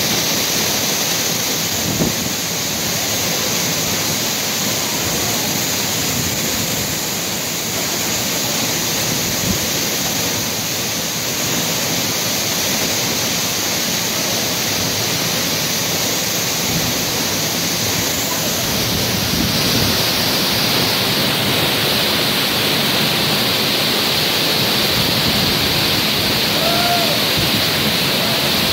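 Tall waterfall heard close to its base: a loud, steady rush of falling water.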